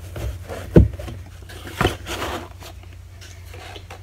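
Packaging being handled and rummaged through, rustling and scraping, with two sharp knocks about a second apart.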